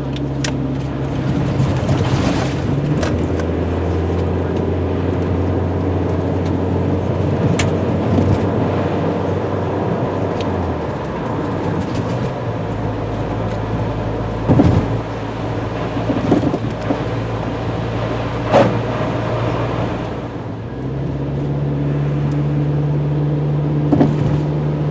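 Car engine and road noise heard from inside the cabin while driving, the engine's low hum stepping to a new pitch a few times as speed and gears change. A few short knocks stand out about two-thirds of the way through.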